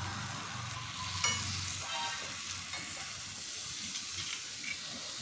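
Sauce-coated chicken satay skewers sizzling on a hot perforated grill plate over a portable gas stove, a steady hiss, with a few light taps as more skewers are laid on the plate, the sharpest about a second in.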